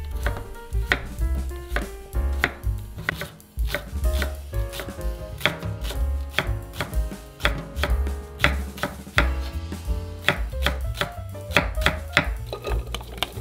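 Chef's knife chopping on a wooden cutting board, a few uneven strikes a second, first slicing Korean radish into flat pieces and then slicing green onion into rounds.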